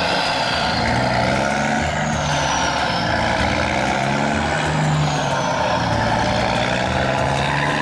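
Heavy truck engine running steadily, with a high whine that falls in pitch about every three seconds.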